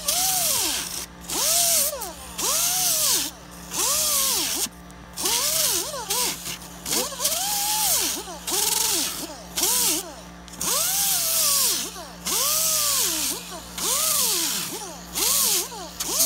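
Air-powered angle grinder with a 24-grit sanding disc cutting into Styrofoam, run in short bursts about once a second. Each burst is a hissing whine that rises and then falls in pitch.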